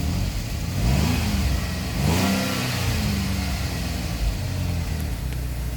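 GM 3.6-litre V6 running with an erratic idle, its engine speed climbing twice, about a second in and again about two seconds in, before settling. The replacement engine is running rough after it had trouble starting.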